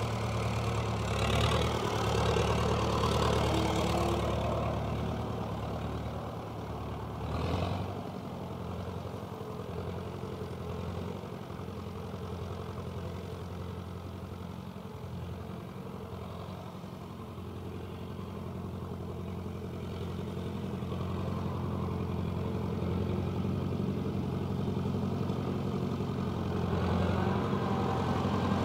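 Perkins-Fordson tractor's diesel engine running, louder and revved for the first few seconds, then settling to a lower idle. One short sharp clunk about seven seconds in, and the engine builds up again over the last third.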